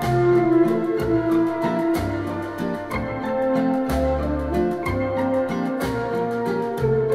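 Instrumental music played back through a Klipsch The ONE II Bluetooth speaker: organ-like keyboard chords over a bass line that changes note every second or so, with a steady beat.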